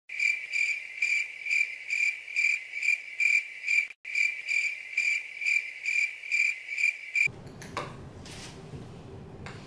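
Stock cricket-chirping sound effect edited into the soundtrack: a clean, steady high chirp pulsing about twice a second with no room sound under it, the comic 'crickets' cue for a dragging, awkward wait. It drops out for an instant about four seconds in and ends about seven seconds in, giving way to quiet kitchen room sound with a few light clicks.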